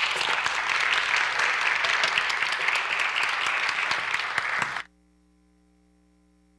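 Audience applauding, a dense patter of many hands clapping that cuts off abruptly about three-quarters of the way through. Afterwards only a faint steady electrical hum remains.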